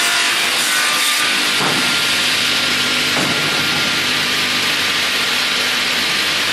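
GP-500VRP slab-processing sawing machine cutting wood: a steady, loud sawing noise with a faint steady whine over it.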